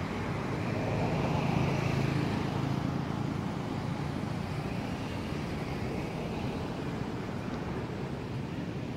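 A steady, distant engine drone from passing traffic, swelling about one to two seconds in and then easing off.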